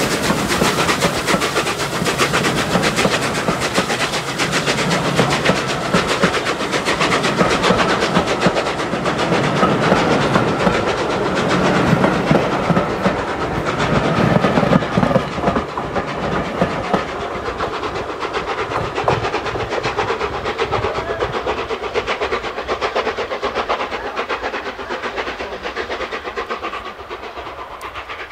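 The Flying Scotsman, an LNER Gresley A3 three-cylinder Pacific steam locomotive, working its train past with rapid exhaust beats and the clatter of wheels and coaches. It grows louder to a peak about halfway through, then fades as it draws away.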